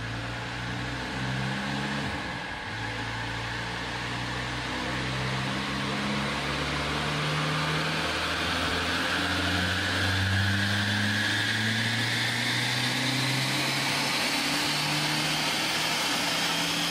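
Tuned TDI diesel engine held at high revs, running rich enough to pour out black smoke. Its note steps up and down several times while a high whine rises slowly over the middle of the run.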